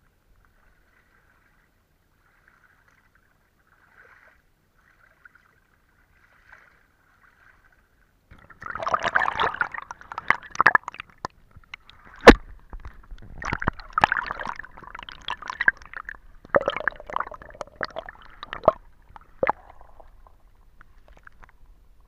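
Close sloshing and scraping noises in irregular bursts, starting about a third of the way in, with a sharp knock a little past halfway; before that only a faint patter.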